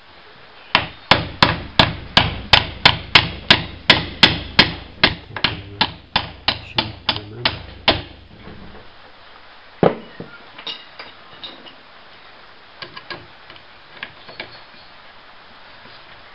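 A small hammer tapping repeatedly on the metal latch of a masthead halyard lock, about twenty quick, even taps at about three a second that grow lighter after the first few seconds. A single sharp knock follows near the middle, then a few faint clicks as the latch is handled.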